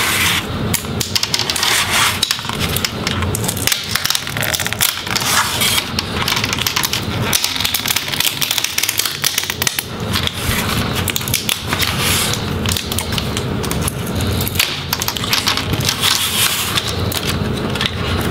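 Laptop screen bezel being pulled by hand off the LCD panel, its adhesive letting go: a dense, irregular run of crackles and clicks.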